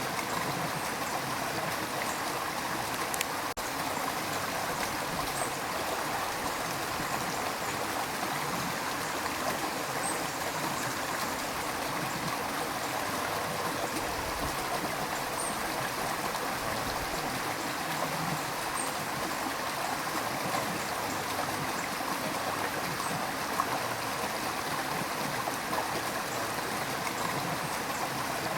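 A river's water running and rushing steadily, with an even babble that does not change.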